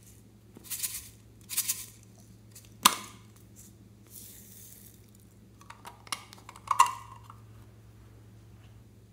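Hard plastic toy container handled with short rustles and a sharp click, then glitter and sequins poured from it with a soft hiss. A few plastic clicks and a ringing clink against the glass bowl follow near the end.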